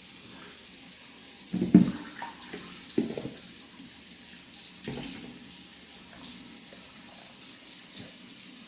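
Kitchen tap running water into a sink, a steady hiss, with two short knocks less than two seconds in and about three seconds in.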